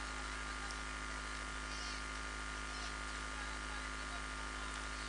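Steady electrical mains hum and buzz from a PA sound system idling with its microphone open, with no one speaking.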